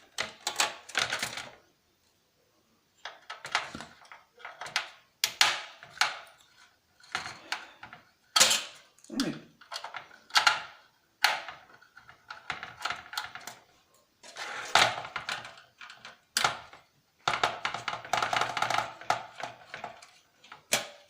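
Irregular clicks, scrapes and metallic clatter of a hand screwdriver working screws out of a PlayStation 3's chassis and of loose screws and metal parts being handled and set down, with a brief pause about two seconds in.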